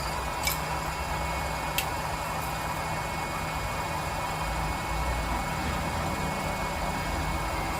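Kasuga NV2U2 milling machine running at a steady speed, a steady hum with a high whine, with two sharp clicks in the first two seconds.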